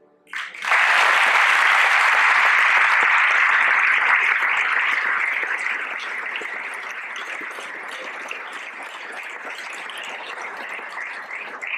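Theatre audience applauding, breaking out suddenly about half a second in, loudest for the first few seconds and then easing slightly.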